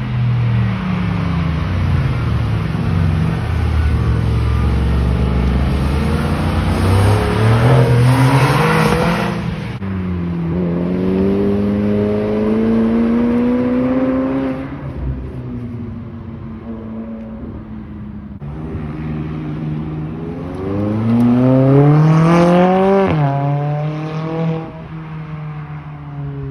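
High-performance sports cars, a Mercedes-AMG GT R and then a McLaren among them, accelerating hard away one after another. Each engine note climbs steadily through a gear and then drops abruptly at an upshift, several times over, with the loudest pulls about a third of the way in and again past the middle.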